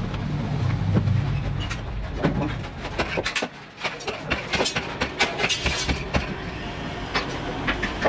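A low rumble in the first couple of seconds, then irregular clinks, knocks and scraping of brick and concrete rubble and soil being dug and cleared by hand.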